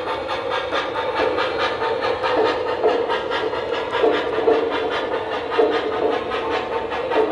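O gauge model steam train running: the locomotive's rhythmic chuffing, with the steady rumble and clatter of its wheels on the track.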